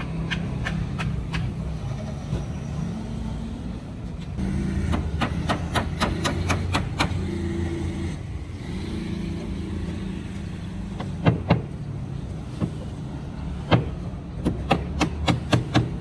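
Hammer blows on timber formwork: sharp knocks in quick runs of several a second, about five seconds in and again near the end, with a few louder single blows between. Under them is a steady low engine hum.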